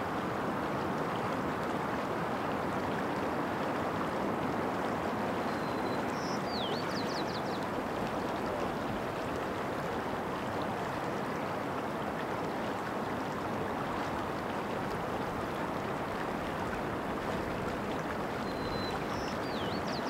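Mountain creek water running steadily. A small bird sings a short high phrase twice, a brief note, a falling glide and a quick trill, once about six seconds in and again near the end.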